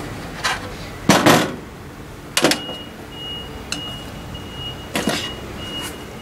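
Metal camping gear being handled on a metal tabletop: a slotted stainless steel windscreen set down around a brass alcohol stove on a metal plate, giving about six sharp knocks and clinks, the longest a short clatter a little after one second in.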